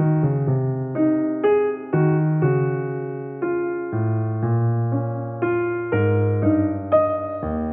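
Background music: an electric piano playing a slow melody over chords, each note struck and then fading.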